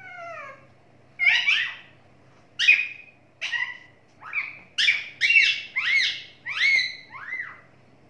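Rose-ringed (Indian ringneck) parakeet calling in a quick run of about ten short, high-pitched calls whose pitch rises and falls, starting about a second in.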